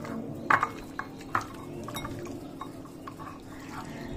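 Marinated chicken lollipops being mixed by hand in a ceramic bowl: fingers and pieces knock and clink against the bowl. The two loudest clinks come about half a second and just over a second in, with softer knocks between.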